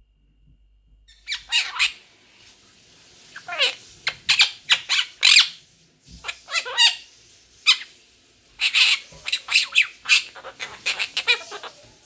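Monk parakeet (Quaker parrot) vocalizing in short bouts of sharp squawks and chattering calls, starting about a second in, with brief pauses between bouts.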